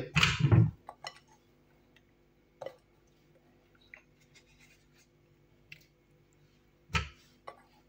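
A few scattered clinks and knocks of kitchenware being handled, with a dull thump at the start and another about seven seconds in.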